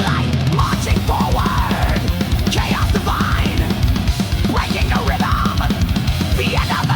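Heavy metal music: fast, loud drum kit with distorted guitar and bass.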